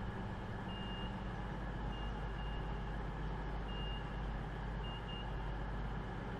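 CrossCountry Voyager diesel multiple unit standing at the platform with its underfloor diesel engines idling in a steady low hum. Over the hum come short high door-warning beeps, on and off, about six in all.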